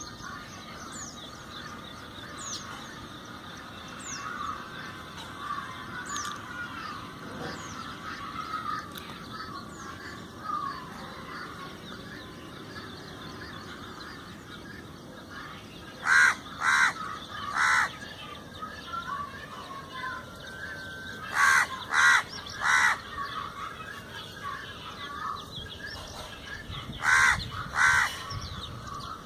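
A crow caws loudly in three bouts: three caws, then three more, then two. Behind it a flock of small birds chirps and twitters.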